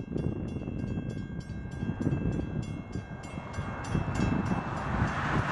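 Grade-crossing warning bell ringing in rapid, even strokes while an approaching freight train's rumble grows louder, swelling over the last two seconds and starting to drown out the bell.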